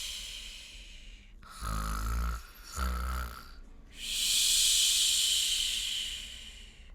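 A woman imitating a bear's snore: two short, low, rattling snorts drawn in, followed by a long breathy exhale that fades away. A similar exhale is already fading out at the start.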